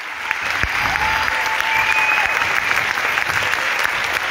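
Audience applauding steadily: many hands clapping at once, with a long high tone that rises and falls partway through.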